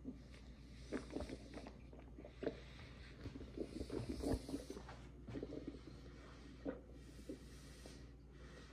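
Soft, irregular rubbing, tapping and rustling close to the microphone from a hand-held phone being handled and moved, loudest about four seconds in.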